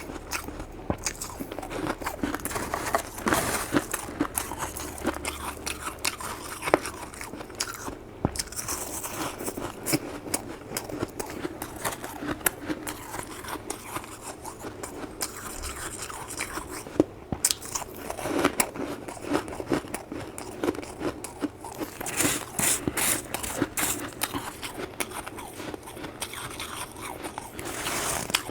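A person biting and chewing freezer frost: a dense, continuous run of crisp crunches and crackles, thickest about three quarters of the way through.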